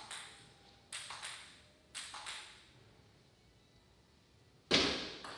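Table tennis ball ticking, first in light pairs of bounces about a second apart. A much louder sharp crack comes near the end, followed by quicker ticks as play begins.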